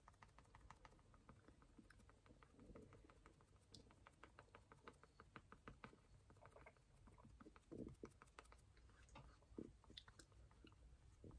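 Faint, rapid patting and tapping of foundation being worked onto the face, with a couple of slightly louder soft knocks later on.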